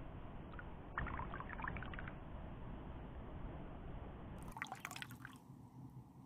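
Small water splashes and drips, in two short clusters: about a second in and again near the end.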